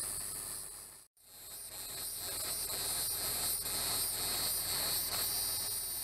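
Insect chorus: a steady, high-pitched buzzing and trilling with a faint pulsing wobble. The sound cuts out for a moment about a second in and then resumes.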